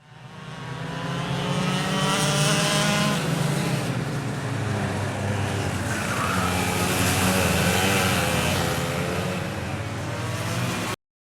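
Recorded racing-engine sound played as a left-speaker test tone, fading in and running with its pitch rising and falling as it revs, then cutting off abruptly just before the end.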